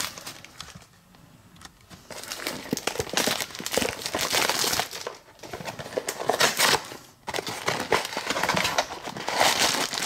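Funko Mystery Minis blind box being opened by hand: packaging crinkling and tearing in quick, dense crackles. It is quieter for the first second or two.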